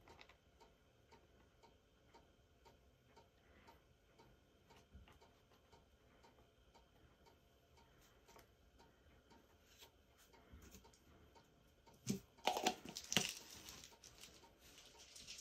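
Faint, steady ticking of a clock, about two ticks a second. About twelve seconds in, a cardstock paper lantern is handled and set down on a tabletop, with a few knocks and rustles.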